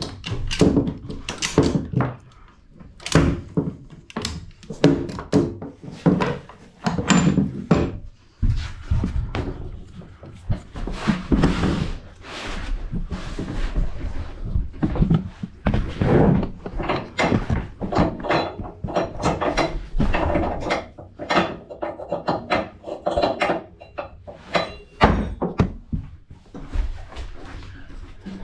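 Irregular thumps, knocks and rubbing in a narrow enclosed trailer with plywood walls and floor: footsteps on the plywood and a handheld camera bumping and brushing against clothing and the trailer wall.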